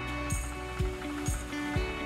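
Background music with a steady beat of about two beats a second, a bright accent on every other beat, over a simple melody.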